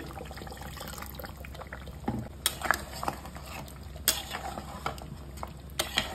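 Wooden spatula stirring water into thick mutton masala in a pressure cooker, with liquid sloshing and several sharp knocks of the spatula against the pot.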